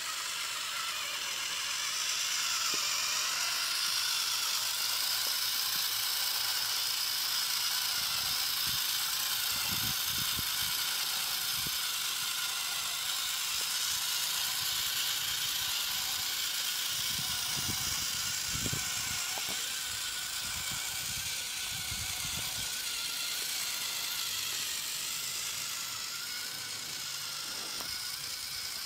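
Small electric motor and gearing of a homemade RC model tractor whirring steadily as it pulls a miniature harrow through sand, with patches of low rumble about a third and two-thirds of the way through.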